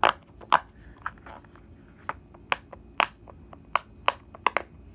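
Bubbles of a silicone pop-it fidget toy being pressed through on its loud side: about nine sharp pops at uneven intervals.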